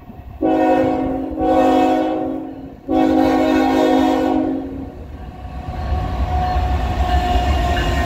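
Approaching Canadian National freight locomotive sounding its multi-note horn in two long blasts, the first swelling about a second in. After the horn stops, the deep rumble of the diesel locomotives grows louder as the train closes in.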